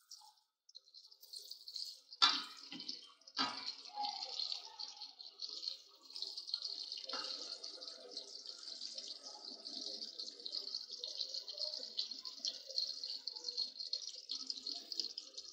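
Sliced onions sizzling in hot oil in an aluminium karahi, a steady crackling hiss. A wooden spatula scrapes against the pan twice, around two and three and a half seconds in.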